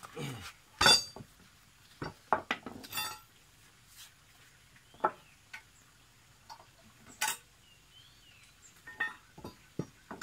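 Hand tools striking and working a bent nail in an old wooden plank to straighten it: irregular sharp metallic clinks and knocks, the loudest about a second in and about seven seconds in.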